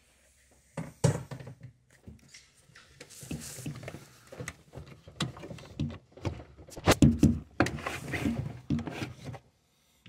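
Irregular hard plastic knocks and clunks as a refrigerator's ice-maker auger is pried up and pulled loose from its housing, with several sharp ones close together about seven seconds in.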